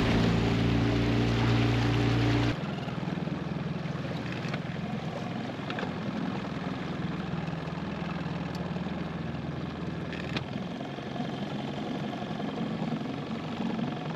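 Small boat's engine running steadily. About two and a half seconds in, the sound drops abruptly to a quieter, rougher engine noise that runs on evenly.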